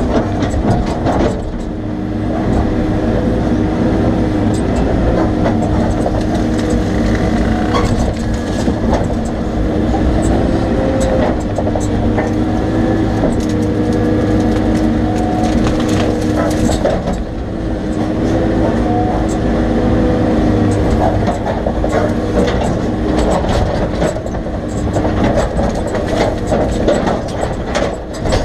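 Excavator's diesel engine running continuously while the machine pushes down trees, its pitch shifting up and down as the hydraulics take load, with scattered sharp knocks and cracks.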